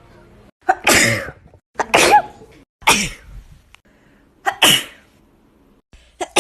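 Four human sneezes in a row, each a sudden loud burst followed by a short voiced tail that dies away. The first three come about a second apart, and the fourth follows after a slightly longer gap.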